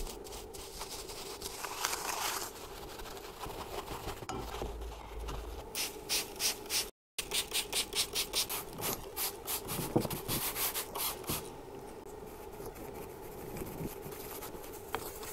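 A stiff paint brush scrubbing the aluminium housings of a dismantled car alternator, at about three to four strokes a second at its busiest, with a brief cut to silence about seven seconds in.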